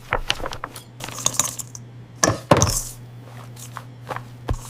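Dishes and metal utensils clinking and clattering in a string of short clinks, with the loudest clatter about two seconds in, over a steady low hum.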